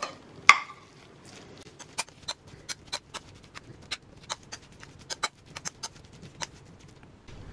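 Metal spoon clicking against a ceramic bowl while stirring fish with onions and seasonings: a string of light, irregular clinks, with a louder one about half a second in.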